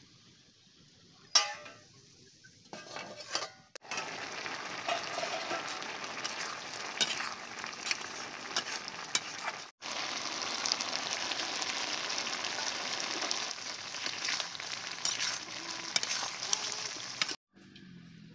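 Curry bubbling and sizzling in an iron kadai while a metal spatula stirs it, with a sharp metal clank against the pan about a second and a half in. From about four seconds on there is a steady hiss of frying full of small pops. It stops abruptly near the end.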